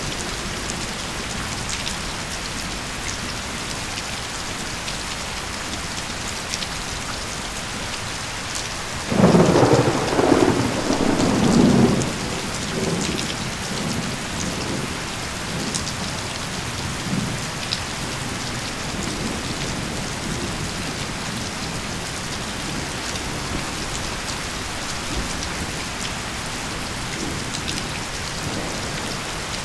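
Steady heavy rain falling, with a loud crack and rolling rumble of thunder about nine seconds in that lasts some three seconds and dies away, and scattered close drips over the hiss.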